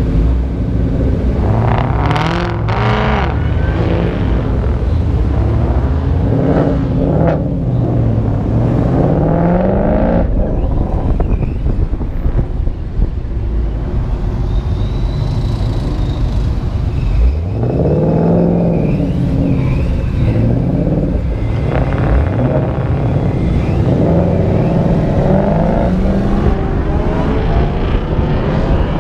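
Ford Mustang engines revving and accelerating, their pitch rising and falling again and again as the cars pull away and change gear, over a steady low engine and road rumble.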